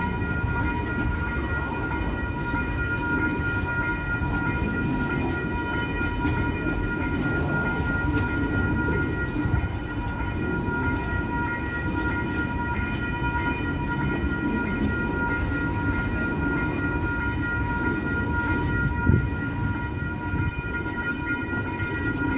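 Freight train of container wagons rolling through a level crossing, a steady low rumble of wheels on rail with occasional clacks. The crossing's warning bells ring steadily the whole time the train passes.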